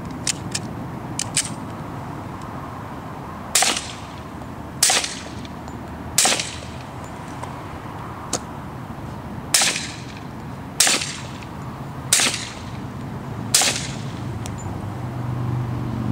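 Suppressed .45 ACP pistol shots: an FNP-45 Tactical with a Shepherd 45 suppressor firing 230-grain ammunition, seven sharp reports each with a short ringing tail, spaced about a second and a quarter apart, with a pause of about three seconds after the third. A few faint clicks come in the first second and a half.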